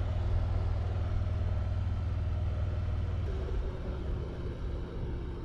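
Motorcycle running down the road, with a steady low engine drone under wind and road noise. The drone eases off a little past the halfway point.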